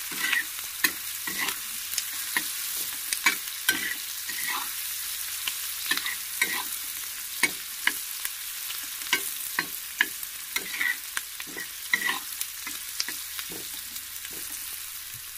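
Chopped onions sizzling in hot oil in a frying pan, stirred with a metal spatula that scrapes and knocks against the pan about once or twice a second. The onions are being fried until they turn reddish.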